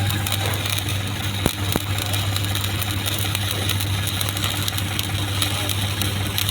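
Stick (SMAW) welding arc crackling steadily while a vertical-up capping pass is run, over the steady low hum of the welding machine. Two sharp clicks come about a second and a half in.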